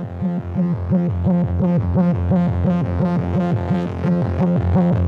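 Electronic background music with a pulsing synthesizer bass line, about four pulses a second.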